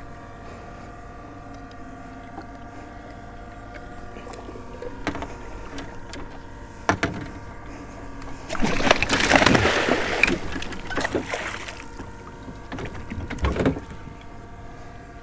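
A hooked shark thrashing and splashing against the side of a fiberglass boat, with a loud spell of splashing about two-thirds of the way through and a few knocks on the hull before and after. Underneath runs the steady whine of an electric trolling motor.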